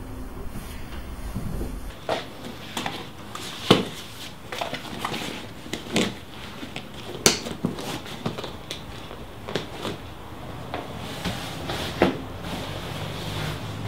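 Irregular knocks, clicks and light clatter of things being handled and set down in a small room, about a dozen separate strikes with the sharpest about a third, halfway and near the end.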